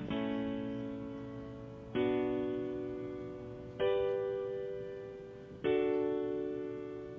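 Background music: piano chords, four of them, a new chord struck about every two seconds and each ringing and fading away before the next.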